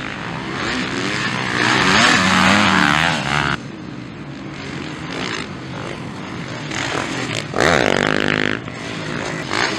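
Motocross dirt bike engines revving hard on the track, the pitch climbing and falling with the throttle; loud for the first few seconds, then cutting off suddenly to a quieter engine sound, with another sharp rev about eight seconds in.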